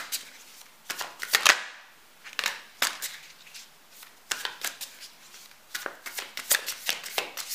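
A tarot deck being shuffled by hand, the cards giving irregular crisp clicks and slaps, the loudest about one and a half seconds in.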